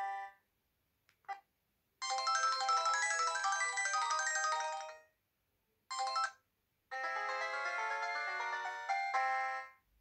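Short polyphonic jingle ringtones played one after another through the small speaker of a BenQ-Siemens EF61 flip phone. One ends just after the start, a second plays for about three seconds, then after a brief snatch of melody a third begins, with short silences and a faint click between them.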